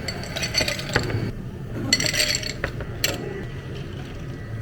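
Metal and glass cafe utensils clinking and rattling in two short clusters, with a couple of sharp knocks.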